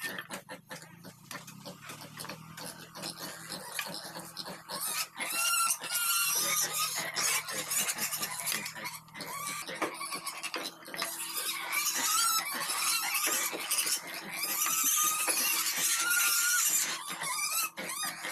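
Pigs squealing in long, loud bouts, with high, wavering cries.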